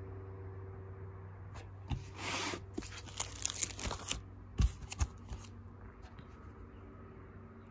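Plastic photo-album page sleeves crinkling and rustling as the album is handled and a page is turned, with several sharp clicks, from about two seconds in for three or four seconds. A low steady hum runs underneath.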